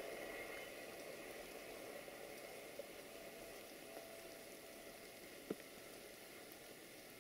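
Faint, steady noise of a train running away from the listener, slowly fading, with a faint steady tone in it. A single sharp click comes about five and a half seconds in.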